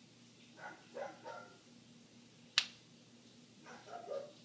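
A dog barking in short runs: about three barks a second in and two more near the end. A single sharp click midway is the loudest sound.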